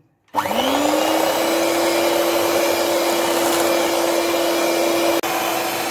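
Electric hand mixer switched on, its motor whine rising quickly in pitch as it spins up and then running steadily as the twin beaters whip chilled cream in a glass bowl.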